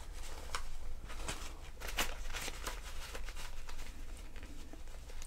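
Paper banknotes being handled and counted out, a series of irregular soft rustles and flicks of the bills, one crisper snap about two seconds in.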